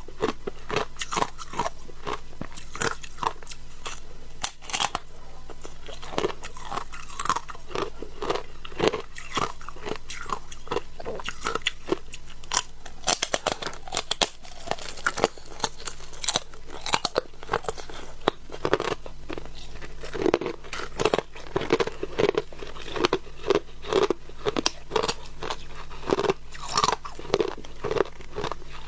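Shaved ice being bitten and chewed close to the microphone: a dense run of irregular crunches, several a second.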